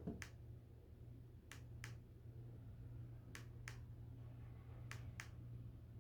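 A white-noise machine's speaker playing a faint rhythmic sound: pairs of sharp clicks about a third of a second apart, repeating roughly every second and three-quarters, over a steady low hum.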